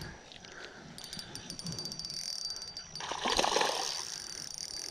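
Spinning reel being cranked, giving a fine rapid ticking, then a splash about three seconds in as a bass strikes the lure at the surface as it comes in.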